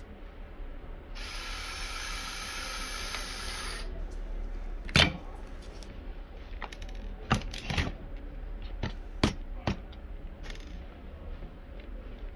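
Cordless electric screwdriver running in one steady whine for about two and a half seconds, turning screws out of a laptop's base. Then several sharp clicks and knocks of the plastic laptop chassis and parts being handled, the loudest about five seconds in.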